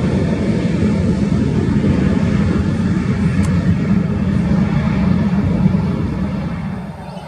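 Airliner taking off, its jet engines giving a loud, steady rumble that drops off sharply near the end.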